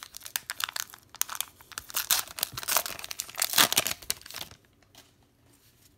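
A 2020 Bowman card pack's foil-lined wrapper being torn open at its crimped seal and crinkled: a dense crackling that stops about four and a half seconds in.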